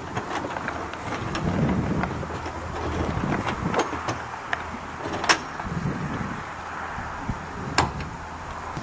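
Horse opening a wooden stable door with its mouth: a few sharp clicks and knocks of the door latch, the loudest about five seconds in and another near the end. Steady wind noise on the microphone runs underneath.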